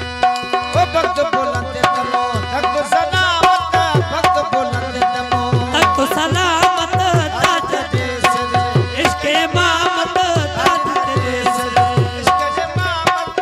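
Live folk music with a dance beat: a hand drum playing steady bass strokes, about two to three a second, under held droning notes and a wavering, ornamented melody line.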